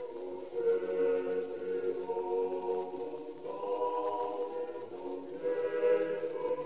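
Unaccompanied choir singing a Latin Renaissance polyphonic Mass, several voice parts holding sustained chords that shift every second or two. It is heard through an old 78 rpm disc recording, restored, with a faint hiss and a dulled top end.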